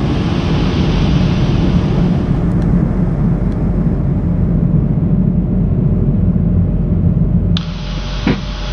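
Steady, loud flight-deck rumble of an Airbus A220-300 climbing out just after takeoff: airflow and its Pratt & Whitney PW1500G geared turbofans. The noise drops abruptly near the end, with a brief knock just after.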